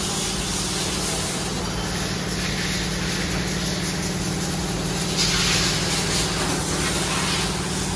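Workshop noise: a steady machine hum under a constant hiss, with a short, louder burst of hissing air about five seconds in.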